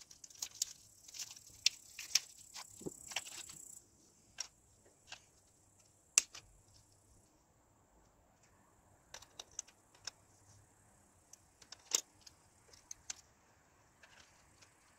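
Plastic clicks and small knocks of AA batteries being taken out of their plastic pack and loaded into the battery compartment in the handle of an electronic ice-fishing rod, with the compartment cap fitted back on. The clicks come close together over the first few seconds, then singly, the sharpest about six seconds in and near twelve seconds.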